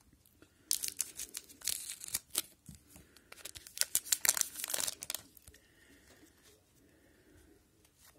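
A hockey card pack's foil wrapper being torn open and crinkled by hand: a run of sharp rips and crinkles starting about a second in and lasting about four seconds.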